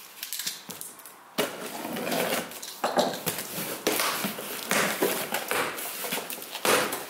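Packaging being handled: irregular rustling, scraping and light knocking of cardboard and plastic, starting about a second and a half in.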